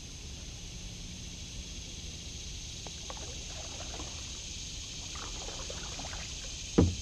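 Kayak paddling on still water: a paddle dipping and dripping, with small trickles and splashes, under a steady high hiss. Near the end comes one short, loud sound that falls sharply in pitch.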